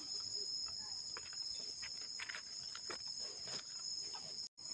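Steady high-pitched drone of forest insects, two even tones held throughout, with scattered crackling rustles of dry leaves as hands dig a mushroom out of the leaf litter. The sound cuts out briefly near the end.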